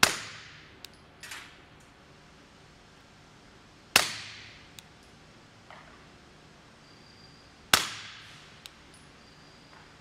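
Three suppressed 9mm pistol shots about four seconds apart from a Glock 45 fitted with a SilencerCo Hybrid 46 suppressor, firing Hornady 147-grain XTP subsonic rounds. Each is a sharp report whose echo fades over about a second, with a faint click following it.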